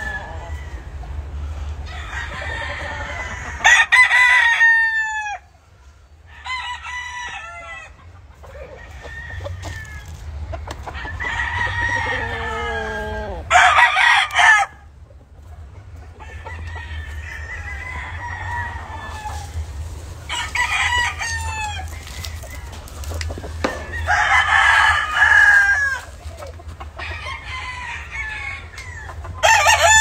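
Several caged gamefowl roosters crowing over and over, one call after another and sometimes overlapping, with some clucking between crows. A steady low hum runs underneath.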